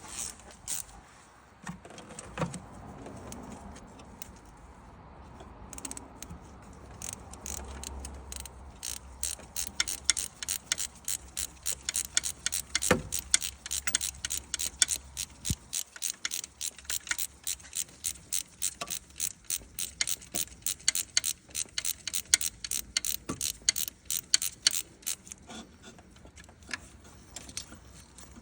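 Hand ratchet wrench clicking steadily at about four clicks a second while a bolt is backed out. The clicking starts about nine seconds in and stops near the end, with a few scattered tool knocks before it.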